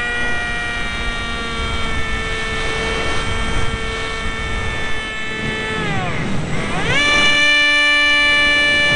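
Small electric motor of a foam RC F-22 model jet whining in flight, heard from the onboard camera with a rush of air. About six seconds in the pitch drops sharply and climbs straight back, and the motor then runs steady and louder.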